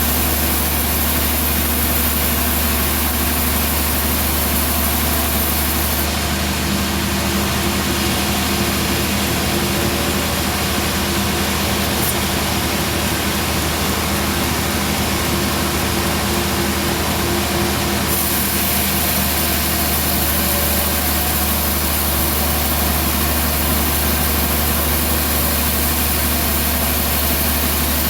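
Bandsaw sawmill running steadily, a constant low engine hum with a hiss above it; the high hiss eases for about twelve seconds in the middle.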